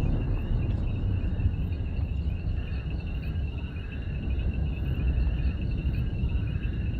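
Crickets chirping steadily over a low rumbling drone.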